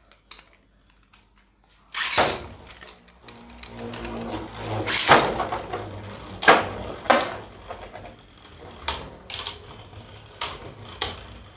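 Two Beyblade Burst spinning tops launched into a plastic stadium about two seconds in, then whirring with a steady low hum as they spin, with several sharp clacks as they hit each other and the stadium wall.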